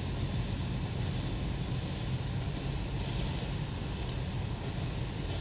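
Cars of a CN mixed freight train rolling past, a steady rumble of steel wheels on the rails.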